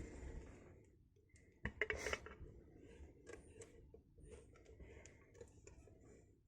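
Faint small metallic clicks and scrapes of lock-picking tools being handled and set into the keyway of a dimple lock, with a louder clatter about two seconds in.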